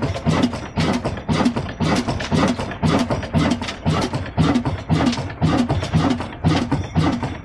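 Slow-running single-cylinder horizontal diesel engine of Ruston Hornsby type, with a heavy flywheel, running steadily with an even beat of about two firing strokes a second.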